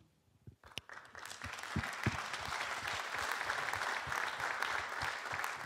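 Audience applauding, starting about a second in and building to steady clapping.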